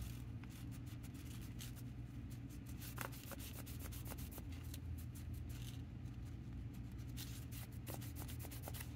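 Cloth rag rubbing and wiping pinball drop-target parts, scrubbing off old sticky grease, with faint scattered ticks and scuffs.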